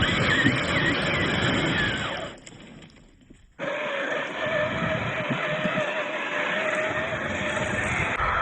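RC Jeep Cherokee driving over rough ground: the motor whines at a wavering pitch over a dense rumble of tyres and terrain. The sound drops away for about a second near the middle, then picks up again.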